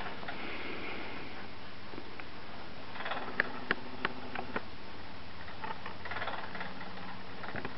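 Meccano ping-pong ball machine driven by a 60 rpm mains gearmotor, running with a steady low hum. About halfway through come four sharp clicks roughly a third of a second apart, followed by lighter rattling of the mechanism.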